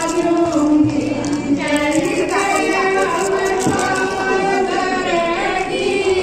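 Women singing a devotional bhajan together, one continuous sung melody at a steady level.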